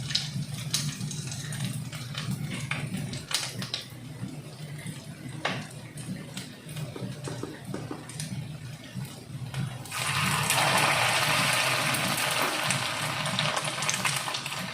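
Vegetable cutlets frying in hot oil in a pan: a low hum with light clicks and crackles, then about ten seconds in a loud, steady sizzling hiss sets in as more cutlets go into the hot oil.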